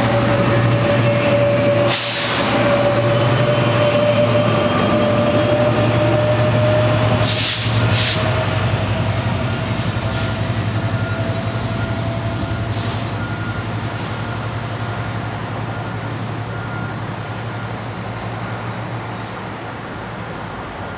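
Metrolink commuter train's diesel locomotive running steadily as the train moves through the station, with a steady hum and a thin whine that rises slightly in pitch. A few brief hisses come about 2 and 8 seconds in, and the sound slowly fades toward the end.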